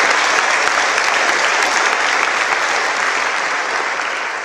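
Audience applauding, steady and dense, dying down a little near the end.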